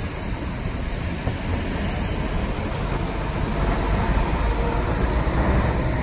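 Running noise of a city bus heard from inside the passenger cabin: a steady low rumble of engine and road, growing a little louder over the last few seconds.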